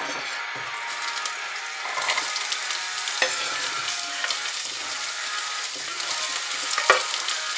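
Diced onion, celery and carrot sizzling as they go into hot olive oil in a stainless steel pot; the sizzle grows about two seconds in as more goes in. Occasional scrapes and sharp knocks come from a chef's knife pushing the vegetables off a wooden chopping board, the strongest knock near the end.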